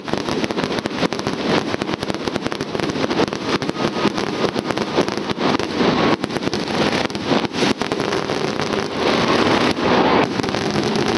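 Fireworks going off without a break: fountains of sparks and small bursts give a dense, continuous crackling made of many rapid, irregular cracks and bangs.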